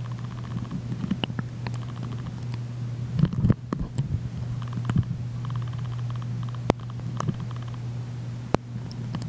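Sound recorded underwater in a swimming pool: a steady low hum carried through the water, with scattered sharp clicks.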